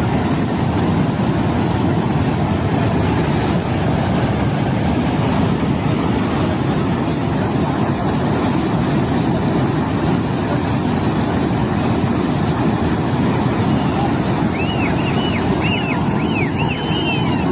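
Flash-flood water from a cloudburst rushing in a loud, steady, unbroken noise. Near the end comes a run of short high chirps.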